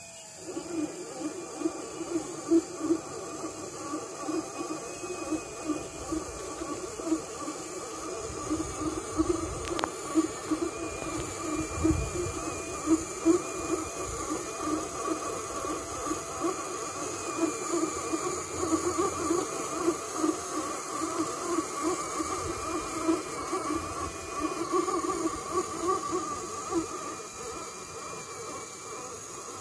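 Small electric motor and gears of a radio-controlled crawler's winch reeling in its line under load, hauling the truck up a steep dirt slope: a steady whine over a fast, even pulsing chatter.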